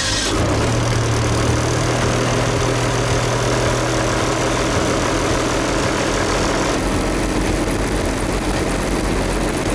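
Airboat engine and propeller idling steadily just after starting, warming up.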